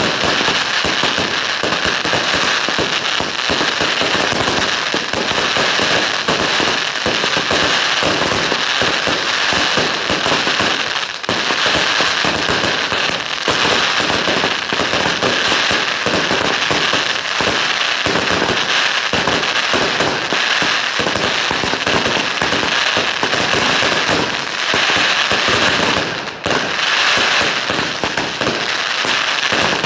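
Fireworks and firecrackers going off in a dense, continuous crackle of many overlapping bangs, with hardly a break.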